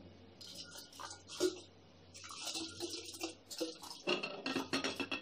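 Water kefir grains and water poured from a glass jar into a glass pitcher, splashing and trickling in uneven spurts that are heaviest near the end.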